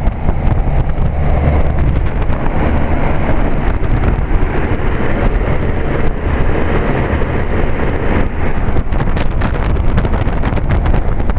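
Circa-1973 General Electric central air-conditioner condensing unit running steadily: the compressor's low hum under the rush of air from the condenser fan, with irregular gusts buffeting the microphone.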